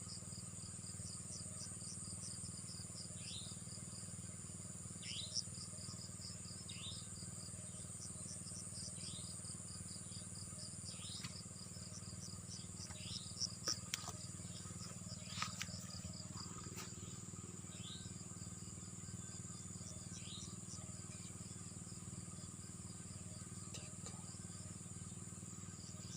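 Insects trilling steadily, with a bird repeating a short call that falls in pitch every second or two, over a low steady hum; a few faint clicks come near the middle.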